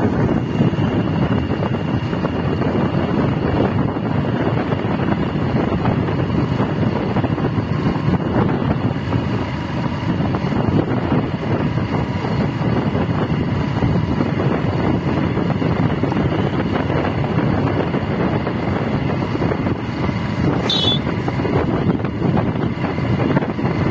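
Steady wind rush and road noise from a moving vehicle, with a brief high chirp about 21 seconds in.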